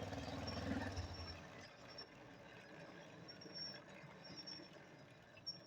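A 49cc four-stroke bicycle engine runs at a high idle, fast enough to keep the bike rolling with no throttle. Its hum drops away about a second and a half in, leaving a faint, quieter background, with a click near the end.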